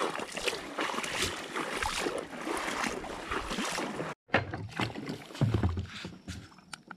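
Footsteps in waders sloshing and squelching through shallow tidal water and mud, a run of irregular splashes and rustles. About four seconds in the sound cuts out for a moment, then comes back as scattered clicks and a low knock.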